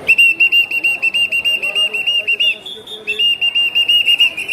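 A whistle blown in rapid short blasts, about eight a second, shrill and loud. Just past the middle it briefly shifts to a higher, steadier note before the fast blasts resume.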